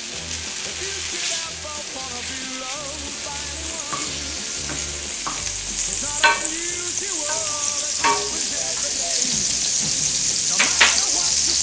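Soy margarine melting and sizzling in a cast-iron skillet as it is stirred with a wooden spatula. The sizzle grows steadily louder as the pan heats, with a few sharp clicks of the spatula against the pan.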